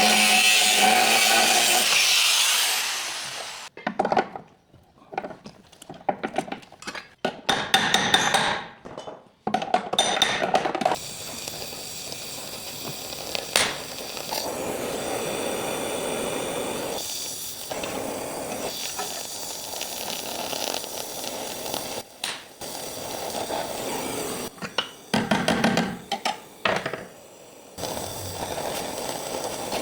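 Body-shop work on car panels: a power tool runs loudly for the first few seconds and stops, then come irregular knocks and clinks of hand tools on metal, then a steadier noise with occasional clinks and a few more knocks near the end.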